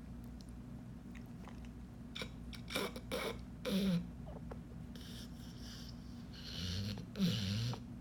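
A sleeping dog snoring and snorting: a few short snorts about two to four seconds in, then longer snoring breaths near the end, over a steady low hum.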